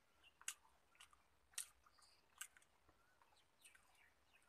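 Quiet chewing of a person eating rice and curry by hand, with a few sharp mouth smacks.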